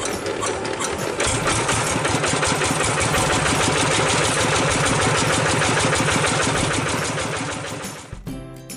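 Single-cylinder diesel engine of a Quick Zeva G3000 two-wheel hand tractor running steadily with a rapid, even knock. It gets louder about a second in and fades out near the end.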